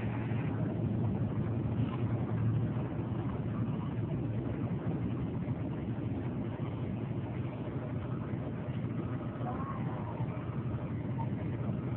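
Steady low rumbling noise with faint chatter from a crowd of onlookers.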